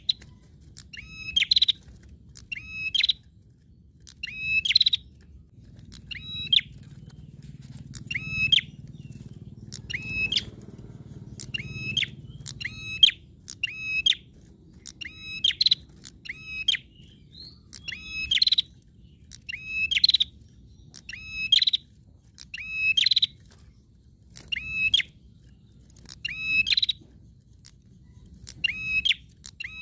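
A caged prenjak songbird calling continuously: a short, sharp chirping phrase about every second and a half, sometimes two in quick succession.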